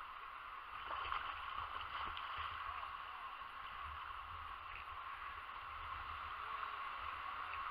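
Faint, steady wash of wind-ruffled shallow water lapping, with a low, uneven wind rumble on the microphone.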